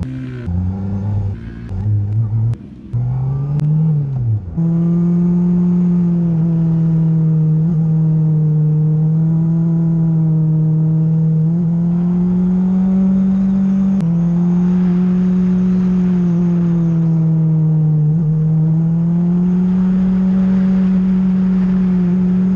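Honda CBR600RR inline-four engine, first revving up and down in quick snatches with the throttle blipped and cut. About four seconds in it settles into a long, nearly steady high note that wavers slightly as the bike holds its revs leaned over through a long corner.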